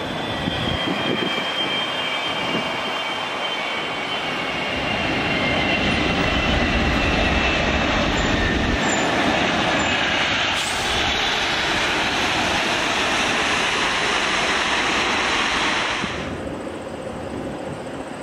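Korean Air Boeing 777's twin jet engines on landing rollout: a loud steady rush with a whine sliding slowly downward, swelling to its loudest with a deep rumble midway through. About sixteen seconds in, it drops suddenly to the quieter, steady noise of a distant Boeing 777 jet on final approach.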